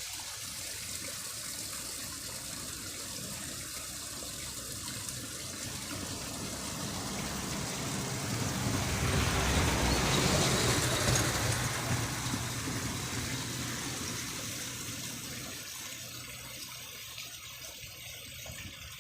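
Steady rush of flowing water. It swells louder for a few seconds around the middle, then dies back down.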